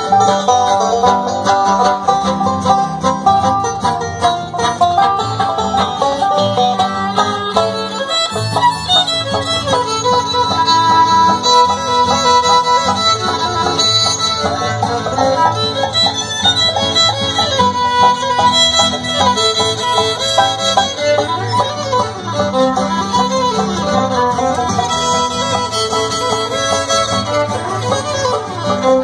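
Live bluegrass string band playing a tune: fiddle and banjo carry the melody over acoustic guitar strumming and upright bass.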